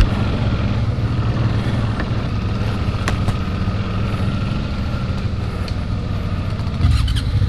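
Suzuki V-Strom motorcycle's V-twin engine running steadily at low revs in second gear, with a couple of sharp knocks. It gets louder shortly before the end.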